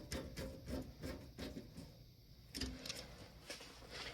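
Irregular light clicks and knocks of hand work on a steam humidifier's cover as it is screwed back in place, pausing briefly about two seconds in.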